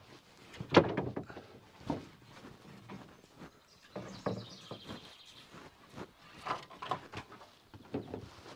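Long wooden gunnel strips knocking and clattering against each other and the wooden building frame as they are handled, the loudest knock about a second in. A bird trills briefly about four seconds in.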